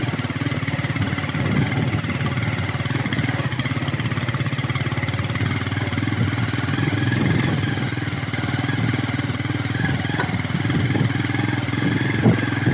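A vehicle's engine running steadily while under way on a bumpy off-road track, with a single sharp knock near the end.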